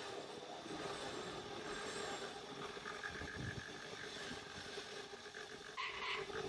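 Steady machine hum with a faint tone running through it, and a short sharper noise near the end.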